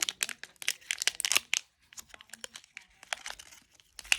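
Blind-box pin packaging being torn open and crinkled by hand. A dense run of crackles for about the first second and a half, then scattered crinkles, with one louder crack near the end.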